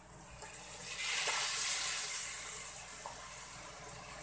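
Shrimp dropped into a frying pan of hot oil: a loud sizzle swells about a second in, then slowly dies down as the pan recovers.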